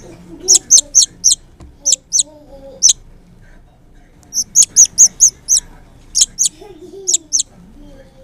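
Baby bird chirping loudly in quick runs of short, high calls, about four or five a second, with brief pauses between runs: food-begging calls while it is being hand-fed.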